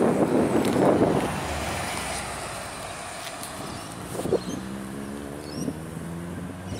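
Volvo B8RLE diesel bus passing close and driving away: a loud rush of engine and tyre noise in the first second or so fades into a quieter steady engine hum, with wind buffeting the microphone.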